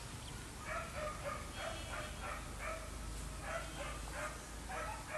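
A series of short, pitched animal calls repeating in loose clusters, several a second.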